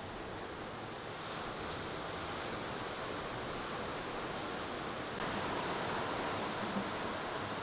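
Steady hiss and wash of surf breaking on a sandy beach, a little louder and brighter from about five seconds in.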